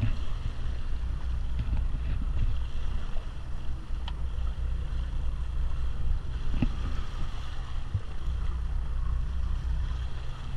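Boat's engine running low and steady with wind buffeting the microphone, and water splashing as a large tuna thrashes at the surface beside the hull. A couple of sharp knocks come partway through.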